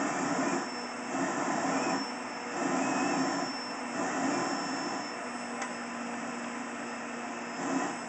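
Vacuum cleaner running, its hose nozzle drawn along a cat's back as it grooms the fur. The steady motor whine swells and dips a little as the nozzle moves.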